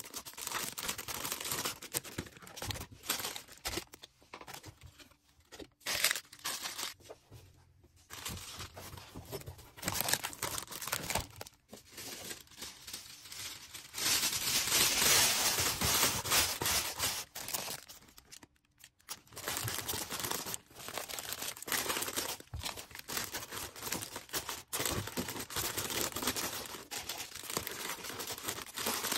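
Orders being packed by hand: packing materials crinkling, rustling and tearing, with a longer, louder stretch of steady tearing noise about halfway through.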